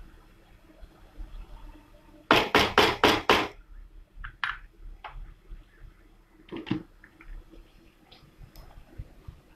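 A wooden spatula knocked five times in quick succession against the rim of a pan, followed a few seconds later by a single lighter knock and a few faint clicks.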